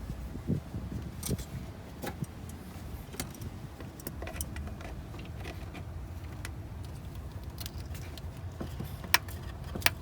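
Scattered light clicks, knocks and rattles of plastic and metal parts being handled as the Audi R8's coolant expansion tank is worked out of the engine bay, with two sharp clicks near the end. A steady low hum runs underneath.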